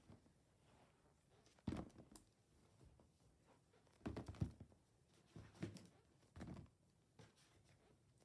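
Squishy foam toys dropped into a plastic storage bin, landing with several soft thuds and bumps against the plastic and each other, a few of them close together near the middle.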